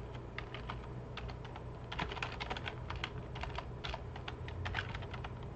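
Typing on a computer keyboard: irregular runs of quick keystrokes, busiest about two and four seconds in, over a low steady hum.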